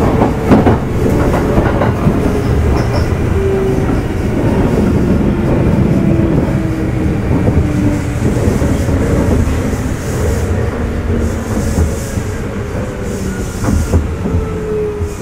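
Kintetsu 1810 series electric train heard from aboard motor car Mo 1826: traction motor and gear whine slowly falling in pitch as the train slows, over a steady running rumble. Wheels knock over rail joints a few times.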